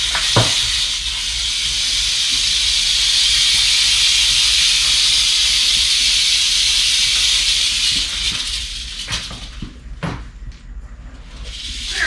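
Large adult Mexican west coast rattlesnake (Crotalus basiliscus) rattling its tail in a steady high buzz while being lifted out of a tub with a snake hook, the species' defensive warning. The buzz dies away about nine seconds in.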